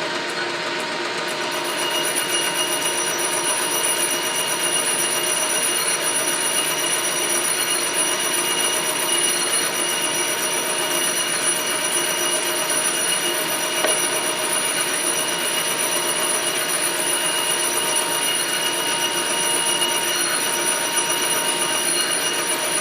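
Metal lathe taking a facing cut across a grinder backing plate with a sharp carbide insert: the cutting noise is joined by a steady, high ringing whine about a second in. The plate is still out of true, so the tool is not yet cutting all the way round.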